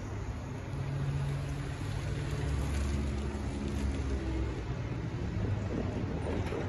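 Road traffic resuming at a railroad crossing: an SUV pulls past close by and drives over the tracks, with its engine hum and tyre noise swelling in the middle. A pickup truck follows toward the end.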